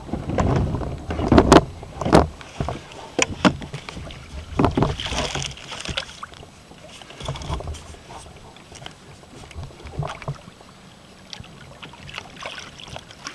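Gear knocking and rattling against a plastic fishing kayak: several sharp knocks in the first few seconds, then lighter scattered handling noise.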